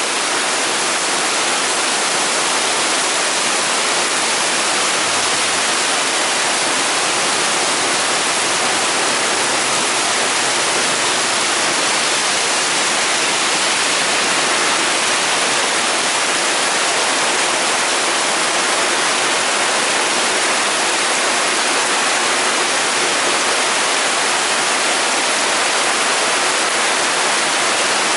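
Heavy tropical downpour: a steady, loud hiss of dense rain pouring down and splashing, unbroken throughout.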